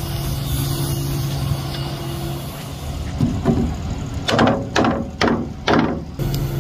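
A rubber mallet hits a wooden block about half a dozen times in quick succession, starting about three seconds in, driving it as a chock against a car's tyre on a steel flatbed deck. Before and after the blows, the tow truck's engine idles with a steady hum.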